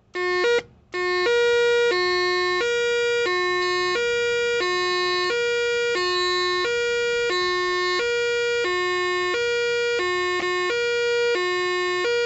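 Whelen WS-2000 electronic siren's hi-lo tone through an 80-watt siren speaker driver held under a hand: two steady tones alternating about every two-thirds of a second. It cuts out briefly in the first second and stutters once more later, glitches from bare wires being touched on the unfinished hookup.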